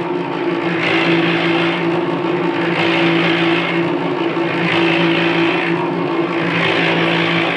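Harbor Freight cement mixer running: a steady motor hum with a swishing surge about every two seconds.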